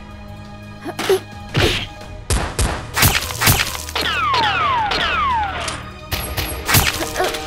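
Background music with a quick run of sharp hits and thuds, and a few falling whistle-like tones in the middle.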